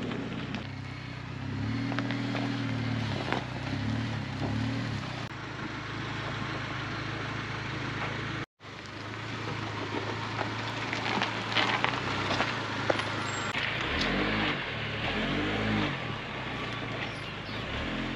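Chevy Colorado ZR2 pickup driving on a rough dirt trail, its engine rising and falling in pitch with the throttle over crackling and rattling. The sound breaks off for an instant about halfway through.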